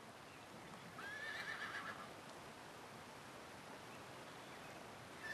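A carriage horse whinnying: a short, faint, wavering call about a second in, with a second whinny starting right at the end.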